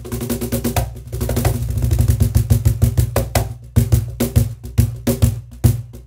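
Meinl Ebony Bass Foot Switch Cajon (JBC6EY), Baltic birch box with an ebony frontplate, played with the hands: a fast groove of deep bass tones and sharp slaps. A dense run of strokes gives way, about halfway through, to more spaced, accented hits.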